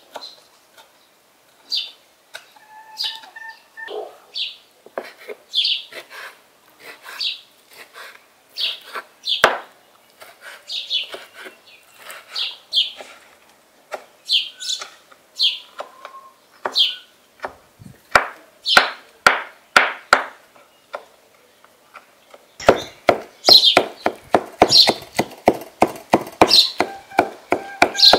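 A small bird chirping over and over, one short high call about every second. A rocking mezzaluna knife chopping on a wooden cutting board: a few scattered chops past the middle, then fast, even chopping, several strokes a second, over the last five seconds.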